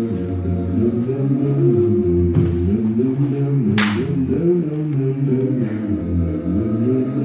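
Several unaccompanied low voices singing overlapping, held notes, a capella. A short hiss cuts through about four seconds in.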